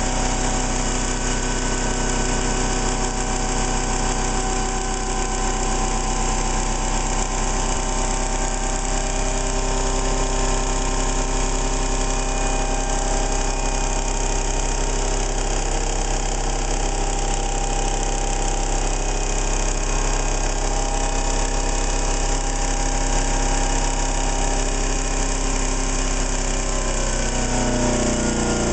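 PDi ReGen-X prototype motor-generator running steadily at about 1900 RPM, its rotor and commutator-switched coils giving a steady multi-toned hum and whine. It is running above the critical minimum frequency for ReGen-X operation. Near the end the pitch falls as the rotor slows.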